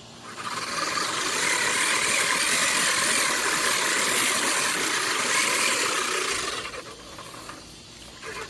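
Push reel lawn mower's five-blade reel spinning against the bed knife as it is pushed through grass: a steady whirring, rasping sound that fades down about seven seconds in.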